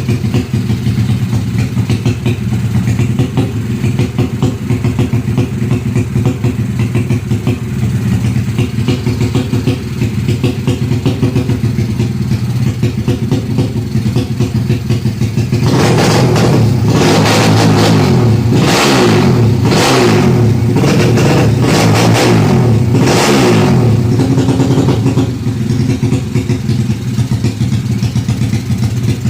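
Honda Karisma four-stroke single-cylinder engine built to 200cc drag-bike spec, running for the first time and not yet tuned. It idles steadily, then about halfway through it is revved in a quick string of throttle blips for about ten seconds before settling back to idle.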